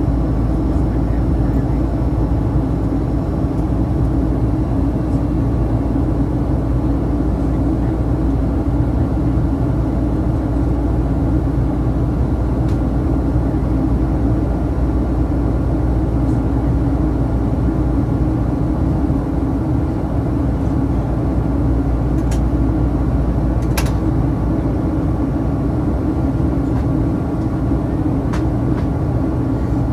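Steady cabin noise of a Boeing 737-800 in flight on approach: the CFM56-7B engines' hum blended with rushing airflow, a strong low drone under a few faint thin steady tones. Two faint ticks come near the end.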